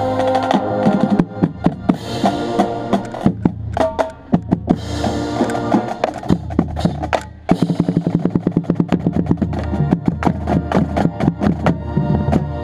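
Marching band playing, brass and winds holding chords over the drumline, heard close to the bass drums with their strikes loud and near. About halfway through the drums break into a fast run of hits.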